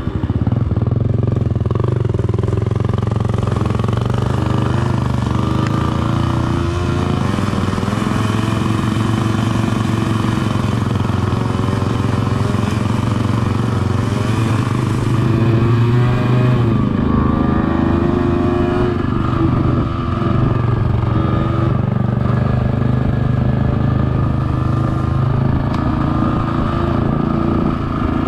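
Dirt bike engine running as it is ridden, its pitch rising and falling as the throttle opens and closes.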